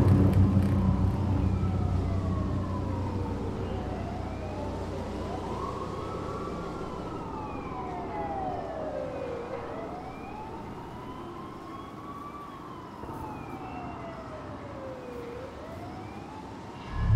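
Distant emergency-vehicle siren with a slow wail, its pitch rising and falling over several seconds at a time. A low rumble fades out during the first few seconds.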